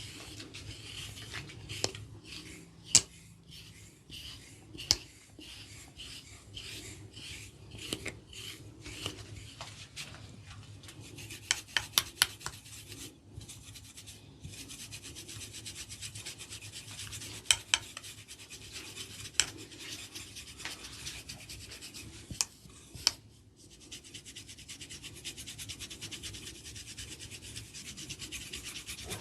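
A barber's hands rubbing and scratching over an oiled scalp, giving a continuous scratchy rubbing. Sharp cracks cut in now and then, with a quick run of them about twelve seconds in.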